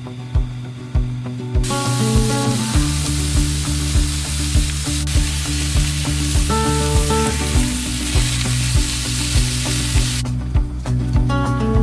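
Food sizzling as it fries in a pan, a loud even hiss that starts about a second and a half in and cuts off suddenly near the end, over background music with a steady beat.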